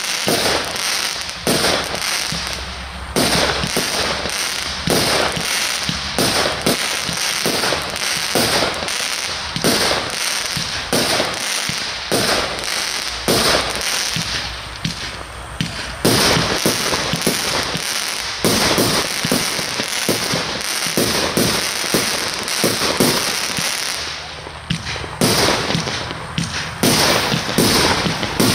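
Aerial fireworks going off in a rapid, continuous barrage: sharp reports close together, many a second, with brief lulls a few seconds in, about halfway through and near the end.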